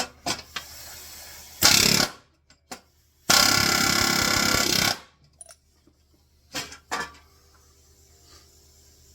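Pneumatic air hammer (rivet gun) driving rivets into a sheet-metal bomber seat, its air turned down low: a short burst about one and a half seconds in, then a longer burst of about a second and a half. A few sharp metal clicks and knocks come before and after the bursts.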